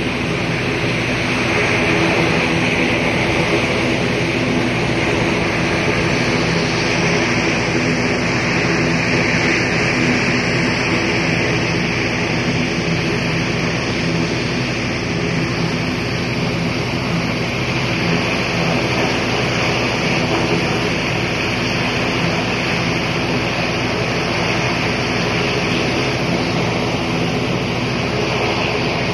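Airbus A320 airliner's jet engines running steadily while it taxis, a continuous loud hiss and whine over a steady low hum.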